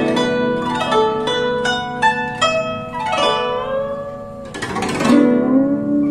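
Guzheng solo: a run of plucked notes, several bent in pitch by the left hand pressing the strings beside the bridges. About five seconds in comes a sweeping glissando across the strings, and the notes ring on after it.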